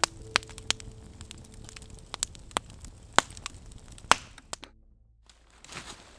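Campfire crackling, with sharp irregular pops of burning wood, cutting off suddenly about five seconds in.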